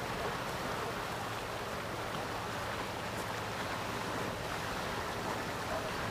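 Steady rush of water and air noise aboard a moving canal boat, with the boat's motor humming low underneath.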